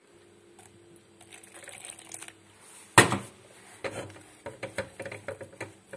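Hands squeezing wet okara (soybean pulp) in a nut-milk bag in an enamel colander, the bag and pulp rustling and crackling in quick irregular bursts, with one sharp knock about three seconds in.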